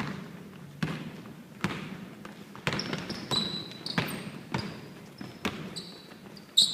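Basketball being dribbled on a hardwood gym floor, bouncing about once a second, with short high squeaks of sneakers on the court; the loudest squeak and thud come near the end.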